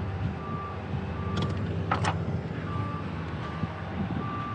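A heavy vehicle's engine running low and steady, with its reversing alarm giving short, evenly spaced beeps about every 0.7 s. Two sharp clicks about a second and a half and two seconds in.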